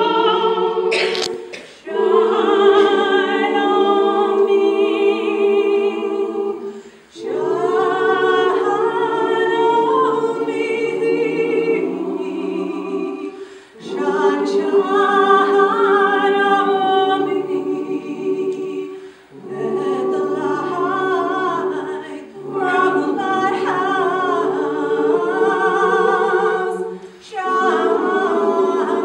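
Women's choir singing a traditional gospel song a cappella in harmony. The sung phrases are broken by brief pauses every five or six seconds.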